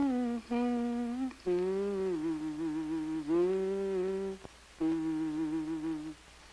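A woman humming a slow tune, holding long, slightly wavering notes in several phrases with short pauses between them.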